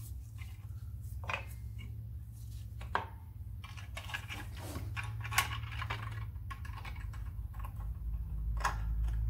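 Light metallic clicks and clinks of hand tools and a brake-shoe return spring being worked onto drum park-brake shoes, with one sharper click a little past halfway.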